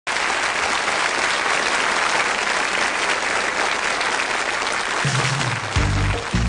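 Theatre audience applauding. About five seconds in, music starts up under the applause with deep bass notes.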